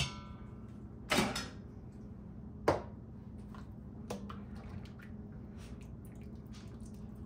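Cookware being handled: a knock about a second in, a sharp click near three seconds and a few light taps, over a steady low hum.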